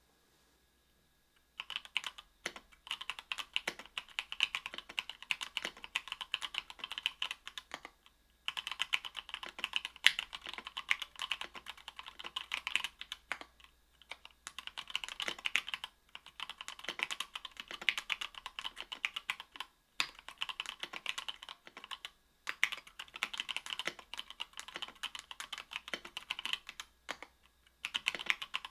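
Typing on a mechanical keyboard with stock, unlubed Gateron Milky Yellow 50 g linear switches on an aluminium plate: keys clacking in quick runs with brief pauses every few seconds, starting about a second and a half in.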